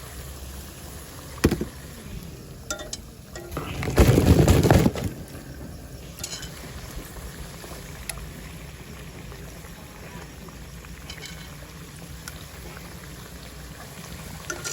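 Batuk, rings of lentil batter, frying in hot oil with a steady low sizzle. A sharp knock comes about one and a half seconds in, and a louder burst of noise lasts about a second from about four seconds in.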